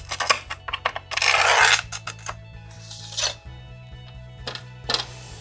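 A hand glass cutter scoring a pane of window glass: a scratchy stroke about a second in lasting under a second, a shorter one about three seconds in, with light clicks and glassy taps between. Background music plays underneath.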